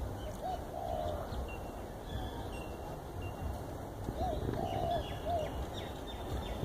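Birds calling: two short phrases of soft cooing notes, about four seconds apart, each with a rougher, longer middle note. Faint high chirps of small birds sit over a steady low background rumble.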